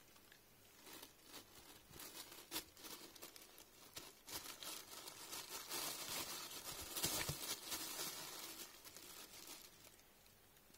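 Thin plastic shopping bag lining a small wastebasket rustling and crinkling as a kitten moves around inside it. The crackling is irregular, thickest in the middle, and dies down near the end.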